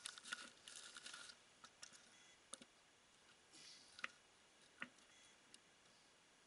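Near silence: a few faint crunching steps on snowy ice, then a few sharp isolated clicks and knocks as the drill and auger are handled. The drill is not running.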